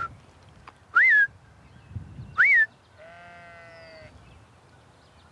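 A shepherd's herding whistle sounding three short, sharp notes, each sliding quickly up and then dropping: a command to a Border Collie to swing around the flock counterclockwise. About three seconds in, a sheep bleats once, fainter.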